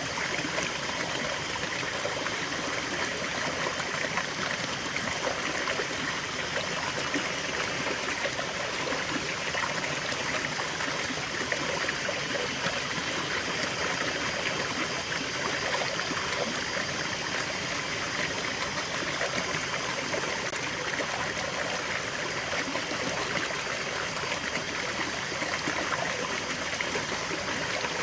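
Small stream flowing and trickling over stones, a steady even rush of water.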